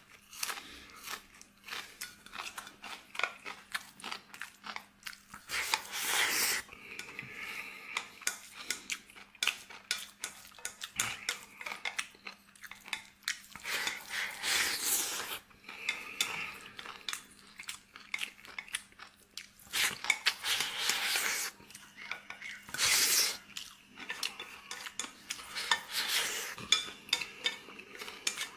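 A person eating: utensils clicking and scraping against a bowl again and again, with chewing and several louder noisy bursts of eating sounds in between.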